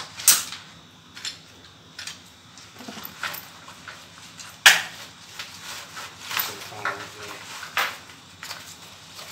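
Plastic chess pieces clacking against each other inside a cloth pouch as it is handled and pushed into a bag pocket, with fabric rustling. There are several sharp clacks, the loudest about halfway through.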